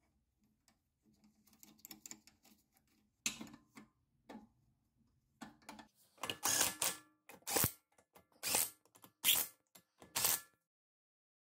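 Hand ratchet wrench clicking in a run of about five strokes, nearly a second apart, in the second half, tightening the rear suspension bolts; fainter tool and handling clicks come before it.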